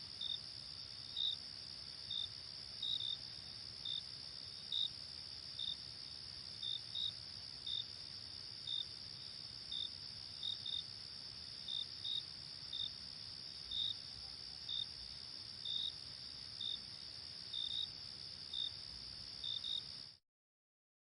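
Night insect chorus of crickets: a steady high-pitched trill with louder short chirps, some in pairs, about once a second. It cuts off suddenly near the end.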